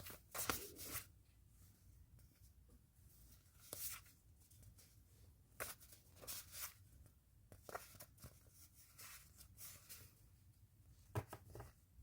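Quiet, intermittent rustling and crinkling of packaging being handled, in scattered short bursts with the loudest near the start and about eleven seconds in.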